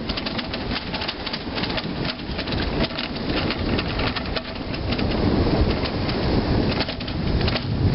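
A bicycle riding over a concrete path: a dense rattle of rapid clicks with tyre noise, and a low rumble that grows heavier about five seconds in.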